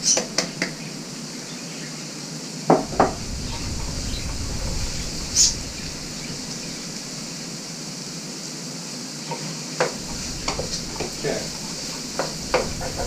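A spoon clinking and scraping against a pot on the stove as onions, celery and carrots sweat in hot oil, with a steady sizzle underneath. The clinks are irregular: a pair about three seconds in, a sharp one near five and a half seconds, and a run of them near the end.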